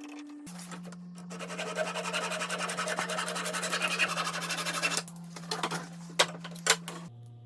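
Fast rasping scrape on wood for about three and a half seconds, like filing or hand-sanding, followed by a few sharp clicks, over a steady low hum.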